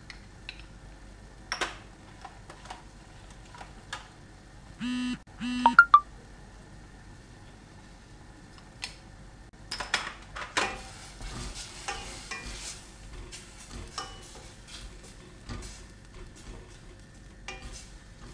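Two short electronic beeps about five seconds in, followed at once by a couple of sharp loud clicks. From about ten seconds on, a wooden spoon stirs and scrapes minced meat and spices around a stainless steel pan.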